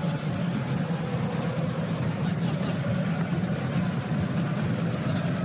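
Steady background noise of a football stadium crowd, an even hubbub from the stands with no single shout or whistle standing out.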